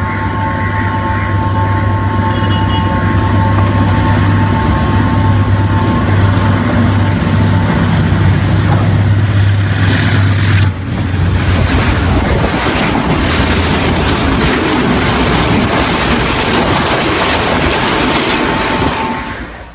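Sri Lanka Railways Class M9 diesel locomotive No. 864 approaching with a steady low engine drone, and a steady high two-note tone over it for the first several seconds. From about eleven seconds in, its express coaches roll past close by with rail clatter and wheel rumble, fading out near the end.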